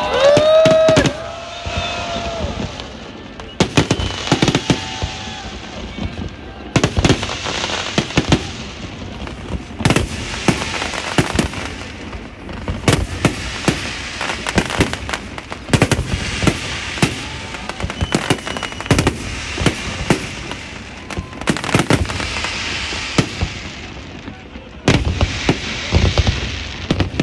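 Fireworks display: rapid bangs and crackling shells going off in dense barrages, with short lulls between them.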